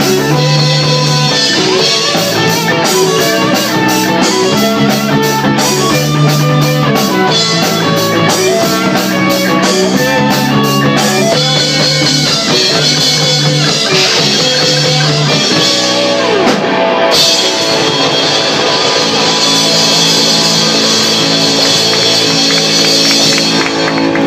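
Live rock band playing: electric guitar over a drum kit with a steady beat. About two-thirds of the way through the band breaks briefly, then comes back in with a continuous cymbal wash.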